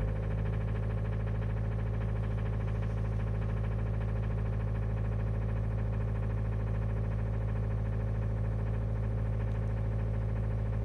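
Mazda Demio engine idling steadily, with a fast, even ticking rhythm over its low hum: the abnormal noise the owner is recording.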